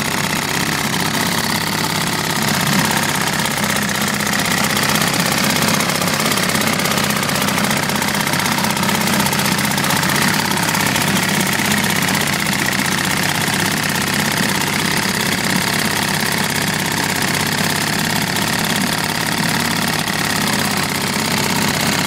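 1932 Evinrude Fisherman model 413 two-stroke outboard motor, a 4.1 hp battery-ignition engine, running steadily on its first start after storage, with its propeller churning the water in a test barrel.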